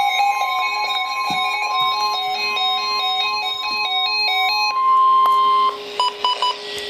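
Electronic melody of quick, pure beep-like notes stepping up and down over a steady low tone. About five seconds in it gives way to one held higher beep, then a few short beeps.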